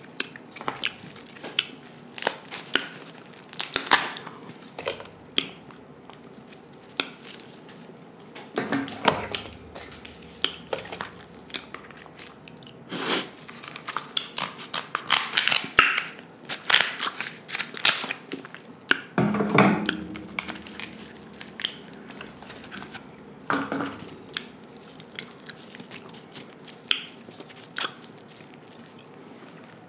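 King crab leg shells cut with kitchen shears and cracked open by hand close to the microphone: irregular sharp cracks and snips, with a few longer crunching stretches.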